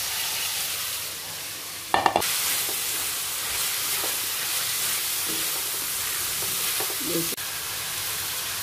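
Goose liver and gizzard with chopped chillies sizzling in oil in a stainless-steel wok while a spatula stirs them, with a loud clatter of the spatula against the pan about two seconds in and a smaller knock near the end.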